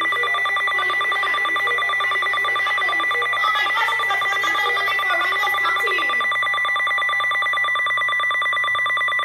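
First Alert weather alert radio sounding its tornado warning alarm: a loud, high-pitched electronic tone that pulses rapidly and holds steady throughout.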